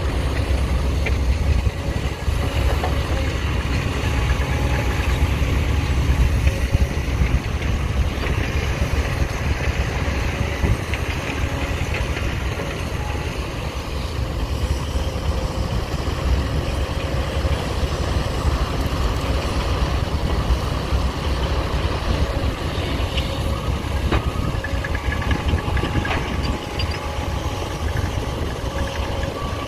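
Heavy diesel machinery of an excavator and dump truck running steadily: a continuous deep engine rumble without a break.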